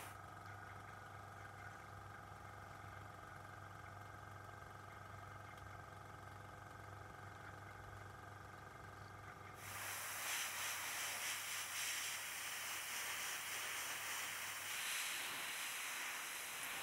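Airbrush setup humming steadily; about halfway through, the airbrush starts spraying paint with a loud, steady hiss of air.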